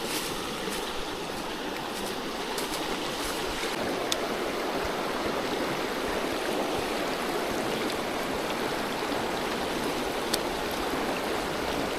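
Steady rush of a flowing stream's water, with a couple of faint clicks.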